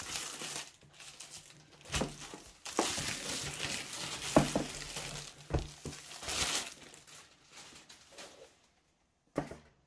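Clear plastic shrink-wrap crinkling and rustling as it comes off a cardboard laptop box, with a few light knocks as the box is handled on the desk. A short click near the end.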